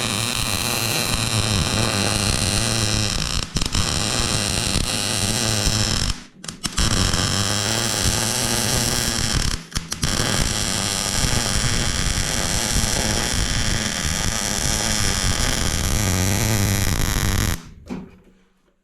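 MIG welder arc crackling steadily as a weld bead is laid. It breaks off briefly about 3.5 seconds in, again near 6 and 10 seconds, and stops near the end.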